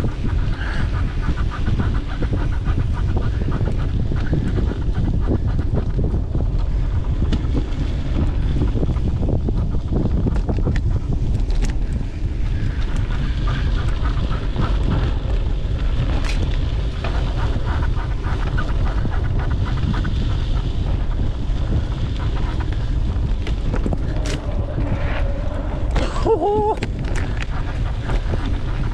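Wind buffeting the microphone and trail rumble from a mountain bike being ridden, with a brief high squeal near the end.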